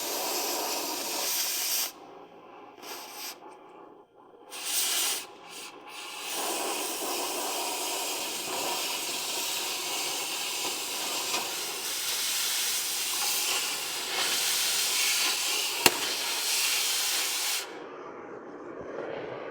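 Hissing in short bursts, then one steady hiss of about eleven seconds that cuts off suddenly, with a sharp click shortly before the end.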